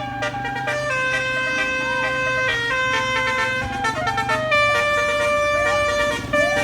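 Bus 'basuri' telolet air horn playing a tune: held notes that step from pitch to pitch, with several short upward-sliding swoops, over the low steady sound of the bus.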